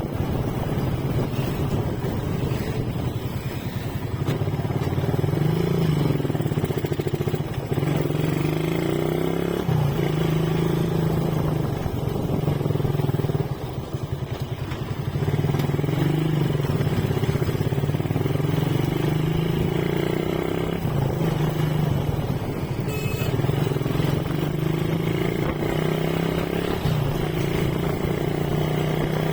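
Motorcycle engine running under way, its pitch climbing and then dropping back several times as the rider opens the throttle and shifts.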